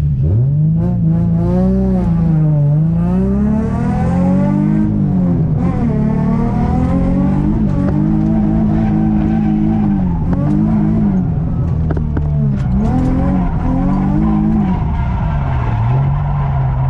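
2003 Infiniti G35's 3.5-litre V6 heard from inside the cabin, climbing hard about as the car pulls away, then rising and falling in pitch over and over as it is driven around a drift course.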